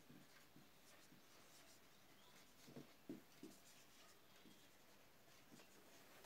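Near silence: room tone, with a few faint short scratches or taps about three seconds in.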